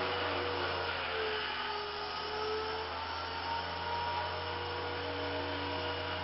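Walkera 60B electric micro RC helicopter hovering low, its motors and rotors giving a steady whine whose pitch wavers slightly up and down as the throttle is worked.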